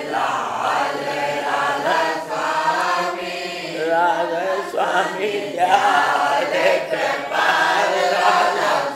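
A group of voices chanting a Radhasoami devotional hymn (shabad) together, in a continuous sung line.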